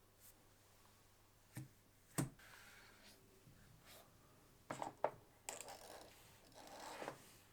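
Smartphone box and its packaging being handled while it is packed back up: a few sharp taps and clicks, the loudest about two seconds in, with soft rubbing and rustling of cardboard and plastic between them.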